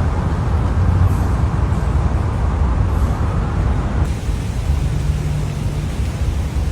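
Loud, steady city street traffic noise with a low rumble, and a brief low engine hum near the end.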